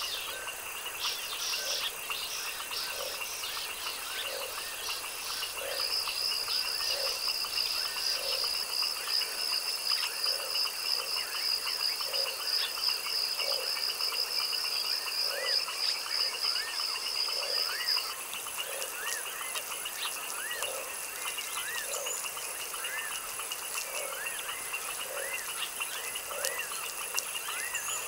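Night frog chorus with a short croak repeating about once a second, over a steady high drone of insects and scattered short chirps. A fast, high-pitched pulsing insect trill joins about six seconds in and stops about eighteen seconds in.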